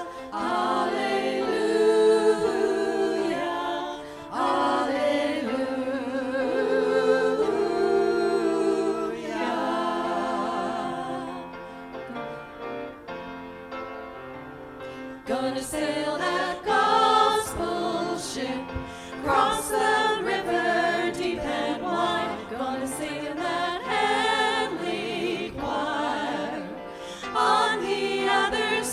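Small mixed choir singing a gospel anthem in harmony into microphones. Sustained chords early on thin out to a quieter passage about halfway through, then fuller, more rhythmic singing follows.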